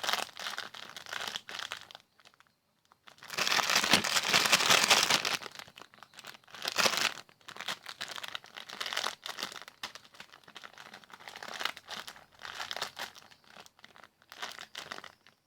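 Plastic bag crinkling as a squishy toy is handled and squeezed inside it, in uneven bursts with a short pause about two seconds in, the loudest burst coming just after.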